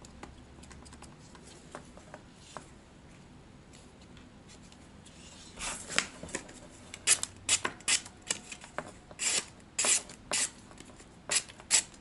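A 5.11 Tactical LMC Recurve folding knife's blade slicing through a sheet of paper. After a few seconds of faint handling, about halfway through, a quick series of a dozen or more short, sharp rasping cuts.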